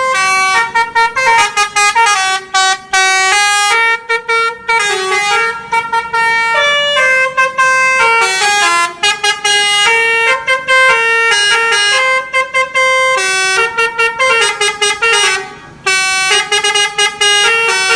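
Telolet basuri horn on a tour bus playing a melody: a quick run of short pitched horn notes stepping up and down, a few a second, with brief gaps between phrases.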